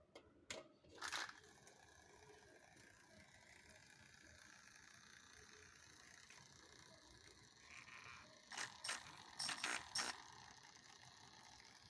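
Drain pump from an LG Turbo Drum washing machine running on its own from a test cable, a faint steady whir with a small skipping rattle, a sign the pump is faulty and needs replacing. A few sharp clicks come near the start and again around nine to ten seconds in.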